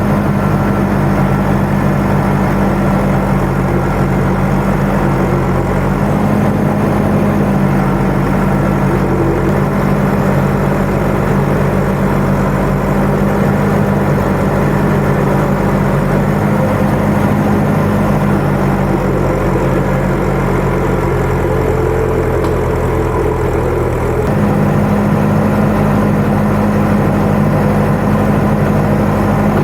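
Farm tractor engine running steadily under way. Its note shifts about six seconds in and again near the end.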